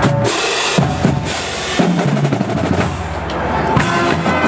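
Marching band drumline playing a cadence: bass drums and snare drums with crashing strikes, and the horns coming in near the end.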